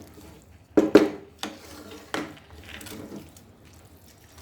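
A few sharp knocks and clinks of kitchen utensils against a cooking pot, the loudest about a second in.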